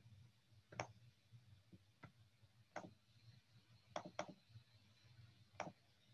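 Near silence with a low steady hum, broken by about half a dozen faint, sharp clicks at uneven intervals.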